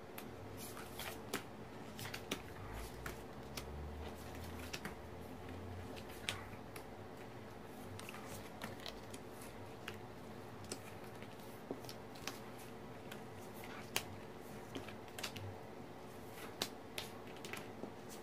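Tarot cards being handled and set down on a cloth-covered table: irregular soft clicks and taps of the cards, one sharper tap about fourteen seconds in, over a steady low hum.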